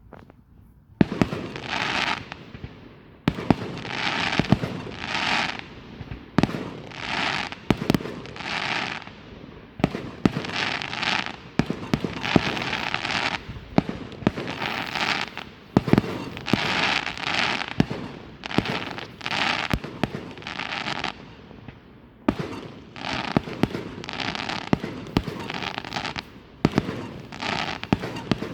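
Fireworks going off: repeated bursts of crackling with sharp pops, about one burst a second, starting about a second in.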